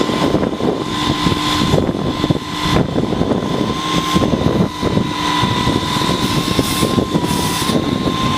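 Tow truck engine running steadily, a rattling rumble with a constant high whine over it.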